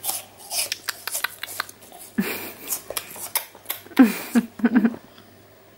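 Soft smacking and clicking mouth sounds from a man eating a piece of fruit, then about four seconds in a baby gives a few short, loud shrieks.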